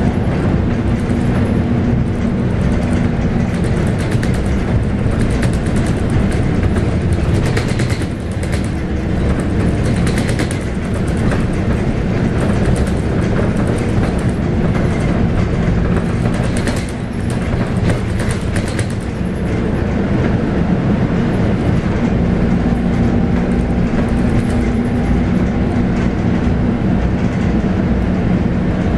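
Inside the cabin of a moving Scania K280UB bus: its 9.3-litre five-cylinder diesel engine runs under a steady rumble of road noise. Body and fittings rattle, most thickly through the middle of the stretch, where the engine tone fades back before it rises again near the end.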